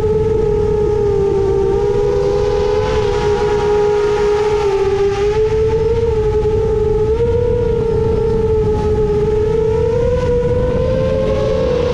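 The motors and propellers of a 7-inch FPV quadcopter (Emax Eco II 2806.5 motors, HQ 7x3.5x3 props) at steady cruise throttle: a continuous whine that drifts slightly up and down in pitch as the throttle changes, over low wind noise.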